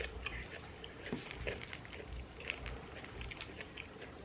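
People chewing food close to the microphone: a soft run of small, irregular mouth clicks and smacks.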